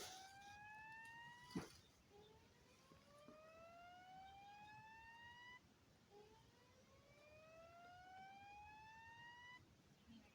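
System Sensor SpSW fire alarm speaker playing the slow-whoop alert tone of a Notifier voice-evacuation message: faint rising sweeps, each about three and a half seconds long and repeating about every four seconds. A single sharp click comes about a second and a half in.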